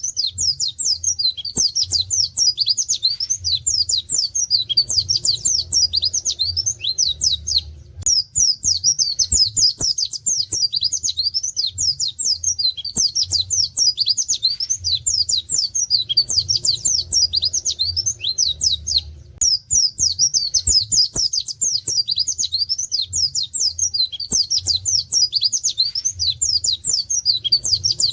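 White-eye (pleci) singing a long, fast, continuous run of high chirps that includes canary-like 'wit wit' notes, breaking off briefly twice. A faint low hum runs underneath.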